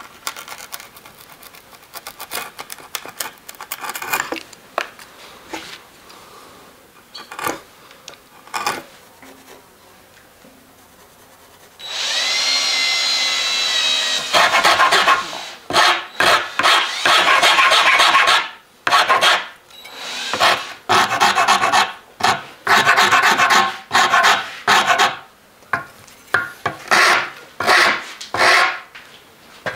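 Hackberry bow stave being worked by hand: light slicing cuts from a carving gouge, then a brief high squeal, then a hand rasp filing the wood in loud, repeated strokes with short pauses.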